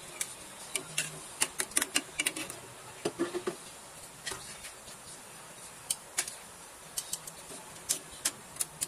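Irregular light clinks and clicks of a cooking utensil and dishes knocking against a nonstick frying pan as raw chicken feet in water are stirred, thick at first and sparser after about three and a half seconds.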